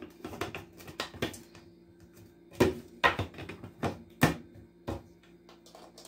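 Plastic parts of a Maxwell hand blender's chopper attachment clicking and knocking as the lid is fitted onto the bowl of oat flakes and the motor unit is pushed down onto it. The sharp clicks come at uneven intervals, the loudest about two and a half seconds in and again about four seconds in.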